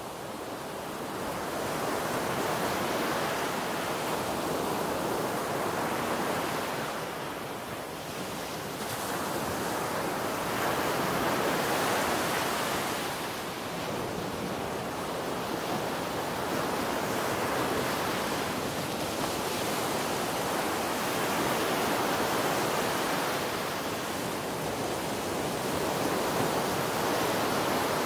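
Sea surf washing up a sandy beach, a steady rush of water that swells and eases every few seconds as the waves come in.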